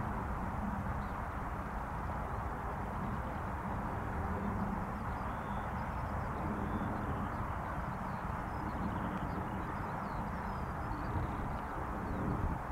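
Steady outdoor background noise: an even low rumble with faint, scattered high chirps.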